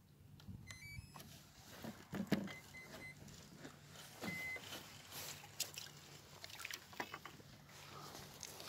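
RC boat's electronic speed controller beeping its start-up sequence through the motor after the battery is connected: a quick run of chirps about a second in, then three short beeps and one longer beep, amid knocks and handling noises from the hull.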